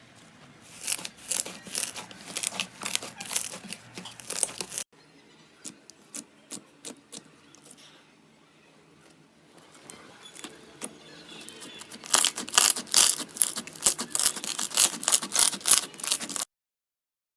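Slime being squeezed and worked by hand, giving quick runs of sticky crackling and popping clicks. A hard cut about five seconds in leaves a quieter stretch of scattered pops, then a louder, denser run of crackling starts about midway through the second half and stops abruptly near the end.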